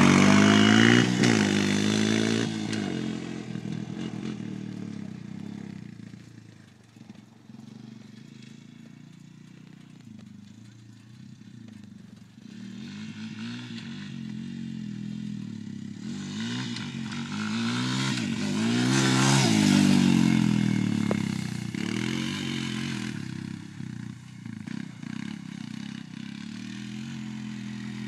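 Honda TRX250EX quad's single-cylinder four-stroke engine revving as it pulls away, fading into the distance, then growing loud again about two-thirds of the way through as it comes back near, its pitch rising and falling as the rider revs and shifts.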